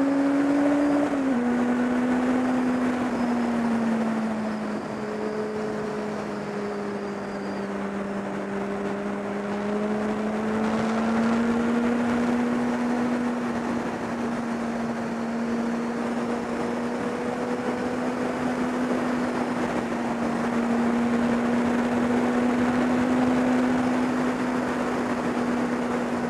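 Kawasaki ZX-10R inline-four engine at a steady cruise, with heavy wind rush over the bike-mounted microphone. The engine note drops suddenly about a second in, sags a little lower, then climbs back slightly around ten seconds in and holds steady.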